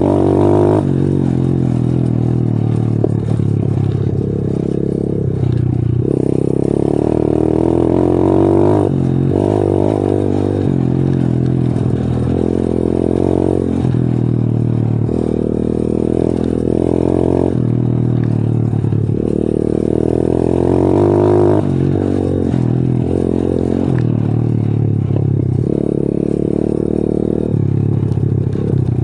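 125 cc pitbike's single-cylinder four-stroke engine running hard under way. Its note climbs with the throttle, then drops back many times over, as with repeated gear changes.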